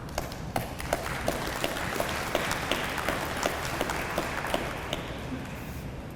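A small audience applauding, with separate claps audible; the clapping builds about a second in and dies away toward the end.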